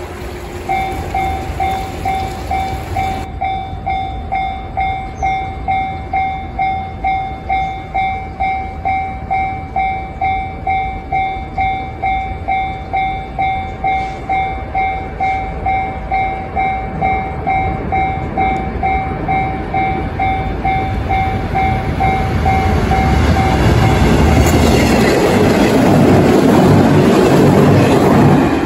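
Level-crossing warning bell ringing in a steady pulse about twice a second, then a JR 113 series electric train running past on the rails, growing louder from about two-thirds of the way in and loudest near the end as the bell stops.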